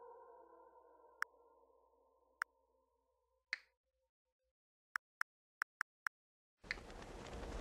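Phone on-screen keyboard key-press clicks: three single clicks about a second apart, then five quick clicks in a row as a word is typed, over the fading tail of soft music. Near the end a steady noisy hiss comes in.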